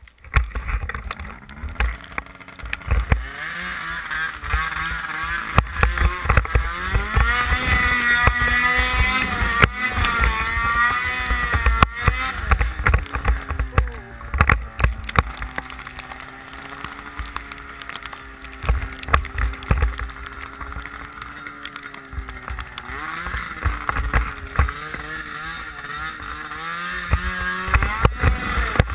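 Snowmobile engine revving up about a second in and pulling through deep powder, its pitch climbing and wavering, then holding fairly steady for several seconds before changing again near the end. A rumble of wind on the helmet microphone runs underneath.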